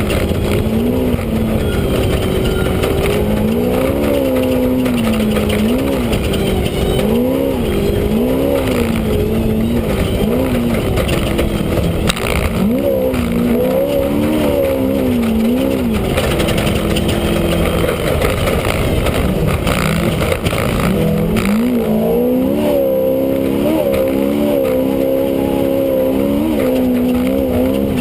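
Off-road race vehicle's engine heard from inside the cockpit, its pitch rising and falling about once a second as the throttle is worked. It steadies briefly about halfway through. A constant rumble of running noise lies under it.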